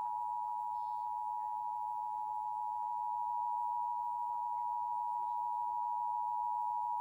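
Emergency Alert System two-tone attention signal: two steady tones sounding together as one unwavering chord, signalling the start of an EAS alert, here a Required Monthly Test.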